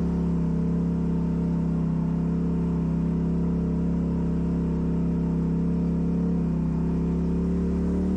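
Off-road vehicle's engine running at steady, fairly low revs, its pitch sagging slightly near the end.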